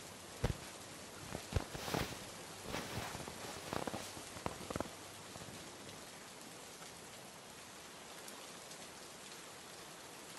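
Steady hiss of rain, with a handful of sharp knocks and clicks over the first five seconds.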